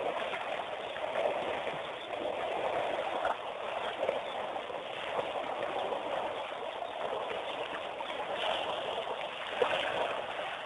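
Steady outdoor waterhole ambience: a continuous rushing, trickling noise like running water, with a few brief knocks.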